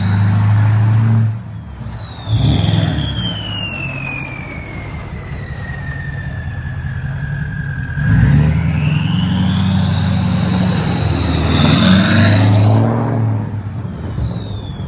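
Ford 6.4 Powerstroke diesel with an H&S single S366 turbo, working at low throttle. The turbo whistle slides down slowly as the throttle eases off, then climbs again about eight seconds in as the engine pulls harder, and falls away near the end. The diesel's rumble runs underneath.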